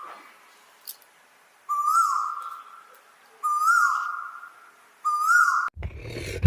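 A bird's whistled call repeated three times at a steady spacing, each starting with a quick up-and-down flourish and then held on one note for about a second. Near the end it cuts abruptly to a loud, low, rough sound.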